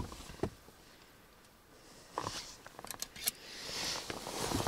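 A few faint clicks and knocks over a quiet background, with a rising rush of hissing noise near the end.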